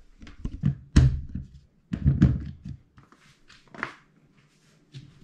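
Handling noise as the camera is carried and set down: a few light knocks, a heavy thump about a second in, then a low rustling rumble around two seconds in.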